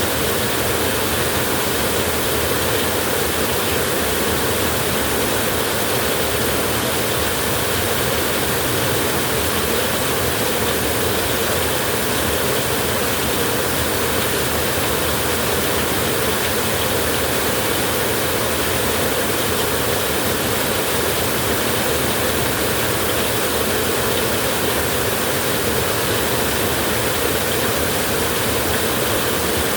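Light drizzle: a steady, unbroken hiss of falling rain.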